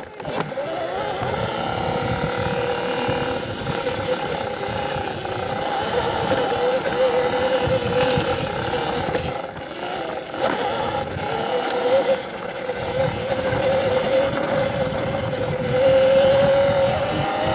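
Electric enduro bike's motor whining steadily as it rides, its pitch wavering slightly with speed, over rough trail and tyre noise; the whine gets a little louder near the end.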